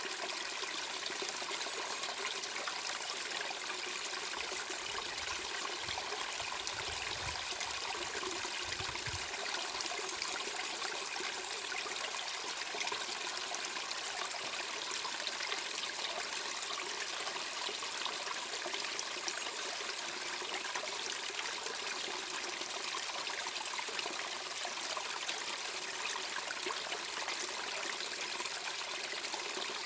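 Steady white noise with the even rush of running water, holding the same level throughout. A brief low rumble sits underneath it from about five to nine seconds in.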